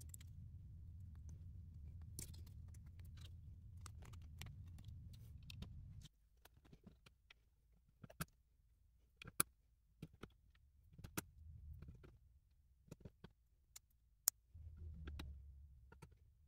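Lego plastic pieces being handled and snapped together: scattered sharp clicks, with a few louder snaps. A low rumble runs under them and cuts off suddenly about six seconds in.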